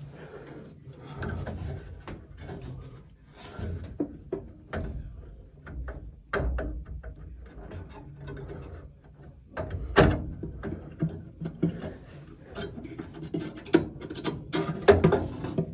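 Irregular knocks, clicks and rattles of hands and tools handling parts, with the loudest knock about ten seconds in and another near the end.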